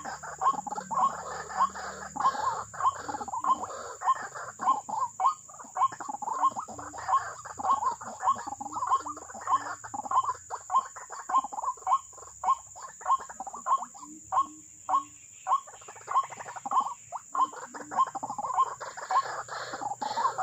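White-breasted waterhen calling: a monotonous call repeated about twice a second without a break. A steady high-pitched drone runs underneath.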